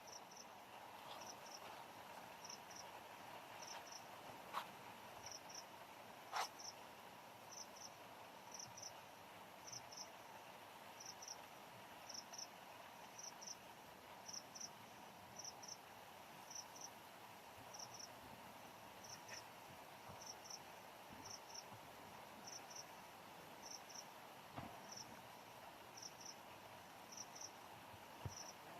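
Faint, high-pitched insect chirping: a quick double chirp repeating about once a second, steady throughout. Two sharp clicks sound a few seconds in, the second the loudest.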